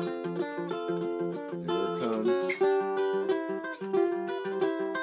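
Old Regal tenor guitar played fingerstyle in an open tuning: plucked notes over a regularly repeating bass note, with a brief sliding sound about two seconds in.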